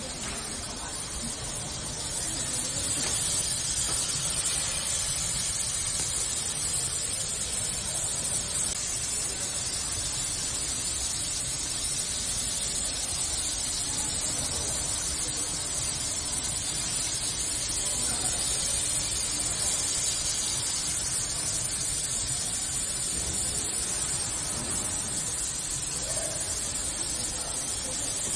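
CNC fiber laser cutter cutting 3 mm carbon steel sheet: a steady hiss of assist gas jetting from the cutting nozzle through the kerf, a little louder from about two seconds in.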